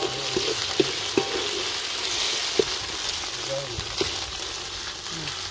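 A spiced paste sizzling in hot oil in a metal wok while a wooden spatula stirs and scrapes it, with several light knocks of the spatula against the pan.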